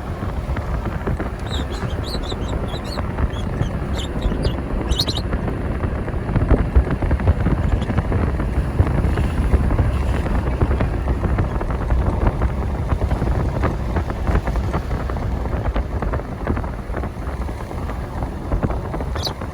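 Wind buffeting the microphone through an open car window while driving, a loud, steady rushing that is heaviest in the low end, with road noise under it. A few short, high chirps sound in the first few seconds.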